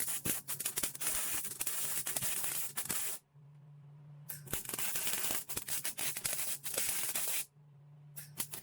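Electric welder crackling and sizzling as bolts are welded onto a steel angle-iron e-brake bracket to make studs. One weld runs about three seconds, then a pause with a low hum. A second weld runs about three seconds, and a short burst comes near the end.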